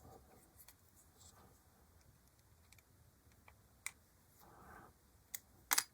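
Quiet handling sounds of a small hand tool and its bits: scattered light clicks and taps, with a few louder clicks close together near the end. No motor is running.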